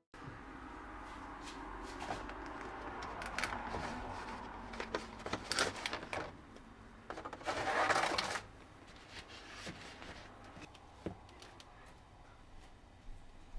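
Clear plastic cake packaging rustling and crinkling as a cake roll is taken out of it, with scattered light clicks and taps. The loudest crinkle lasts about a second, around eight seconds in.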